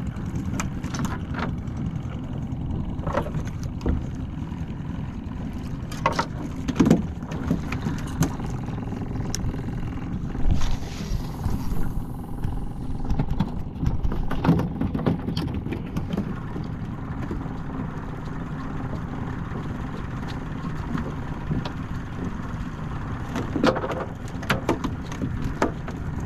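Small boat's outboard motor running at idle, a steady low hum, with scattered knocks and clicks from the fishing gear and the hull.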